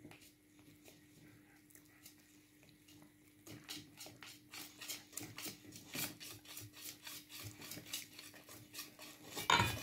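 Wire whisk beating crêpe batter in a round mixing bowl. After a soft start, about three and a half seconds in, it settles into quick, even strokes at roughly three to four a second, the wires scraping and tapping the bowl. A louder knock comes just before the end.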